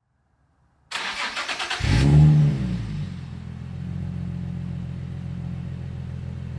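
Nissan 370Z's 3.7-litre V6 being started through a Z1 Motorsports race single exhaust: about a second in the starter cranks with rapid pulses, the engine catches with a brief rev flare that falls away, then settles into a steady idle.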